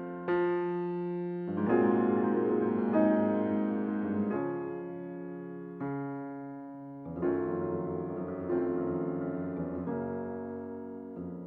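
Background music: solo piano playing slow chords, each struck and left to fade, about one every second and a half.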